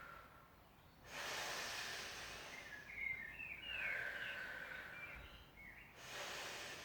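A woman breathing slowly and audibly close to the microphone while she holds a stretch: three long, breathy breaths, a few with a faint whistle through the nose.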